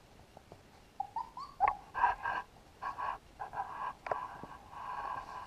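Three-week-old puppies whimpering and squealing in short high-pitched bursts, starting about a second in with a few rising whines, while they tussle with each other.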